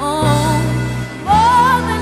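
Background music: a song with a singer's held, wavering melody over sustained low chords.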